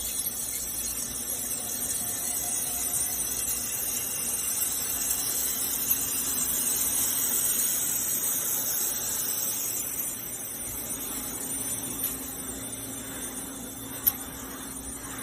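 Tube mill pipe-making line running steadily, a constant machine hum with hiss above it. A sharp click comes near the end.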